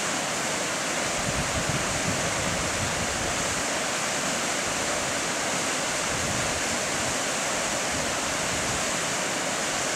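Steady rushing of a stream of water pouring through a rocky riverbed, an even hiss with no break, with gusty low rumbling of wind on the microphone.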